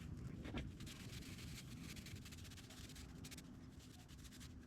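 Soft-bristled brush rubbing dried soil off the skins of freshly dug sweet potatoes: faint, quick scratchy strokes.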